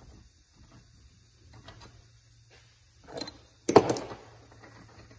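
Small handling noises as a threaded steel bolt is worked into the collar of a vise's ratcheting handle, then a short rattle and a sharp metal clack a little past three and a half seconds in.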